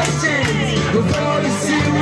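Karaoke backing music with a beat, with a man singing over it into a microphone.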